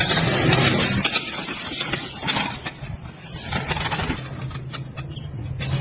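Small diesel engine running the restored water pump: a steady low hum with scattered clicks and rattles over it.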